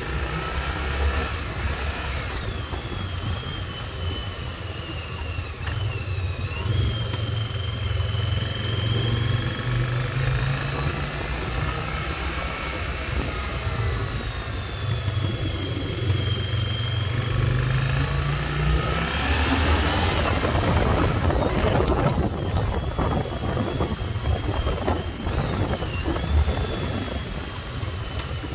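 1996 Yamaha XV750 Virago's air-cooled V-twin engine running while ridden, rising and falling in pitch, with a few pops from the exhaust because the engine was not warmed up long enough. A rush of noise comes in about two-thirds of the way through.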